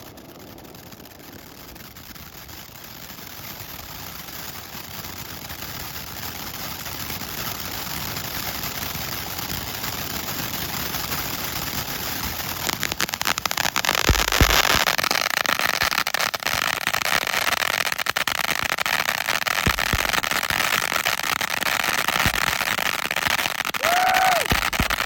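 Ground firework, a fountain, spraying with a steady hiss that grows louder, turning to a dense crackle about halfway through, with a few low thuds near the end.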